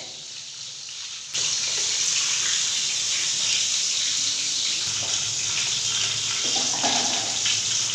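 Rohu fish pieces frying in hot oil in a steel kadai: a steady, loud sizzle that starts suddenly about a second in.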